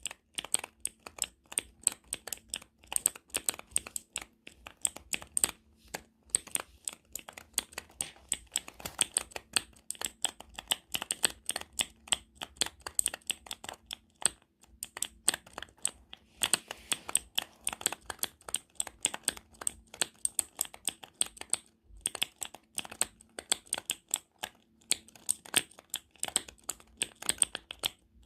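Typing on a computer keyboard: a fast, uneven stream of key clicks, with short pauses about six, fourteen and twenty-two seconds in.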